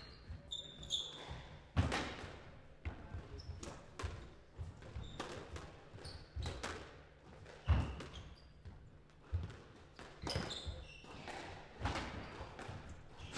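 Squash rally: the ball is struck by rackets and hits the court walls in sharp knocks, irregularly a second or two apart, with short squeaks of shoes on the wooden court floor between the shots.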